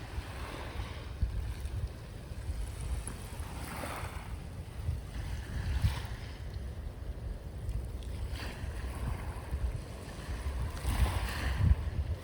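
Sea waves washing onto the shore, a hissing wash swelling and fading every couple of seconds, over a steady low rumble of wind buffeting the microphone.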